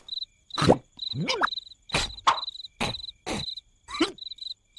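Crickets chirping in short, regular high trains as a night ambience, broken by a string of short sharp knocks and brief squeaks.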